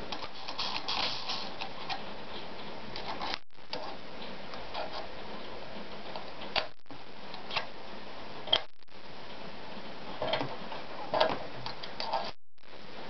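Scattered light clicks and taps as a thread spool is handled on the spool pin and an Anker RZ sewing machine is threaded by hand, over a steady hiss. The background cuts out briefly three times.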